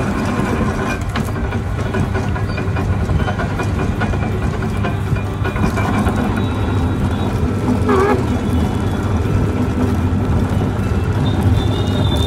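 Motor-driven sugarcane crusher running steadily, its rollers pressing cane, with a constant low mechanical hum and grinding.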